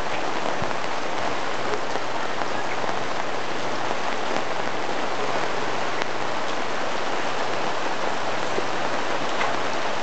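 Heavy downpour: a steady rush of rain with scattered drops ticking close by.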